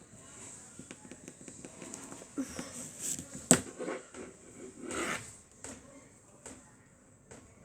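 Hands handling small tools and phone parts on a hard surface: light scattered clicks, taps and scrapes, with one sharp click about three and a half seconds in and a short scrape about a second later.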